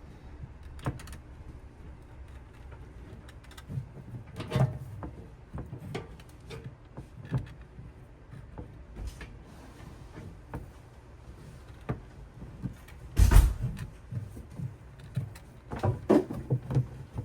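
Scattered light clicks and knocks of handling, with a louder low thump about thirteen seconds in and a cluster of knocks near the end.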